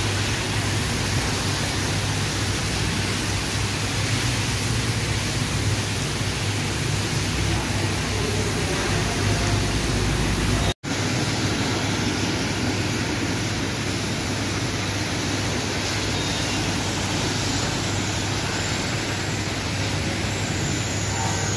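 Steady hiss of heavy monsoon rain with traffic driving on the flooded road, broken by a split-second gap in the sound about halfway through.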